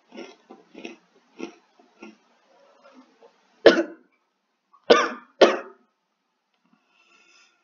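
A boy coughing hard three times, sudden harsh coughs with the last two close together, after a run of softer short throaty sounds. He is coughing up food that went down the wrong way, which he takes for almost choking.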